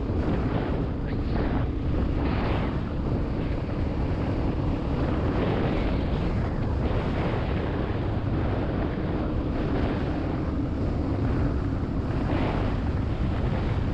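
Wind buffeting the microphone while on the move, with a vehicle's engine running steadily underneath.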